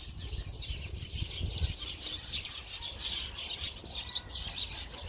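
A large flock of sparrows hidden in a bush, chattering: dense, overlapping chirps with no pause.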